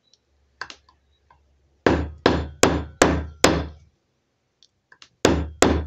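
Heavy rubber mallet striking a metal rivet setter on a copper rivet: five quick blows in a row, a pause, then two more. The blows round the clipped copper post over the burr to finish setting the rivet.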